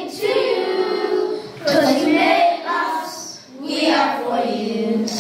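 A group of children singing an Arabic song in unison, in long held phrases with a short breath pause about three and a half seconds in.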